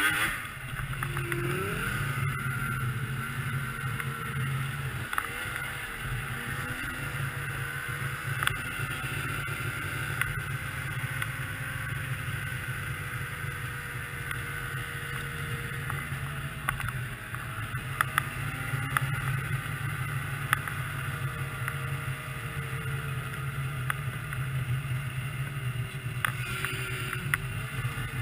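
2002 Yamaha SX Viper 700 snowmobile's three-cylinder two-stroke engine running steadily under way at low speed, its pitch drifting gently up and down.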